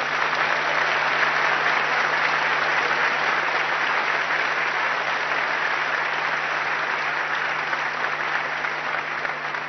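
A large audience applauding: dense, continuous clapping from a packed hall, steady throughout and easing off slightly near the end.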